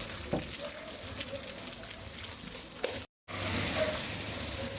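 Steady hiss of heavy rain falling, with a couple of faint clicks. The sound drops out briefly a little after three seconds, then the rain hiss resumes.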